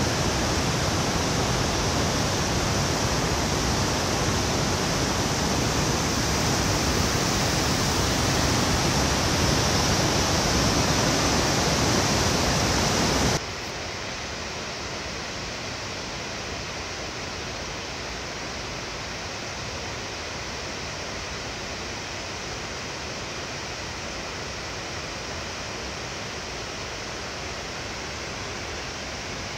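Steady rush of river water spilling over a dam's low weir and stepped fishway. About 13 seconds in it drops abruptly to a quieter, duller rush.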